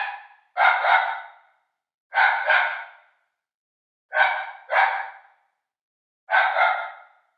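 A puppy crying in short yelps, mostly in close pairs, a new pair about every two seconds, each yelp fading out quickly.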